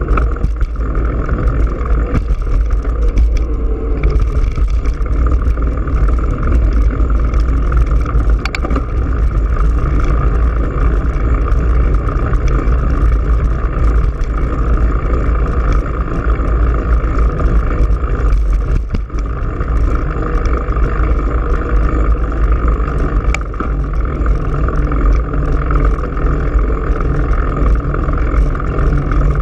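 Steady wind rush and rumble from riding a bicycle, heard on a bike-mounted GoPro Hero3's microphone, heaviest in the deep low end.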